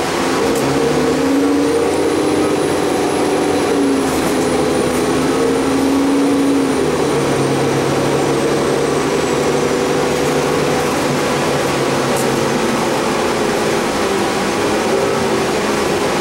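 City transit bus's engine and drivetrain running as the bus drives, heard from inside the passenger cabin. The engine note rises about a second in and drops around seven seconds in, over a steady rushing noise, with a faint high whine gliding downward through the middle.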